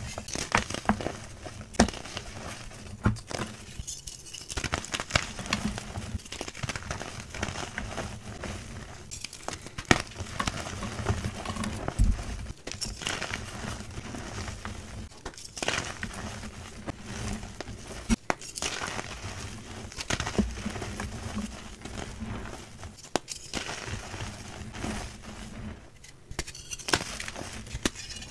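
Hands crushing and crumbling reformed gym chalk: dense crunching and crackling of powdery chalk, with frequent sharp snaps as pieces of block break.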